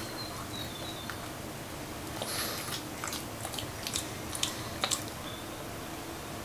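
Pug chewing and mouthing a tuft of fluff, giving scattered small mouth clicks that are busiest between about two and five seconds in.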